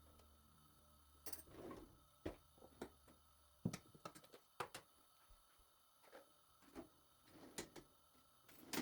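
Faint, irregular clicks and light knocks, about a dozen, of kitchen utensils and dishes being handled.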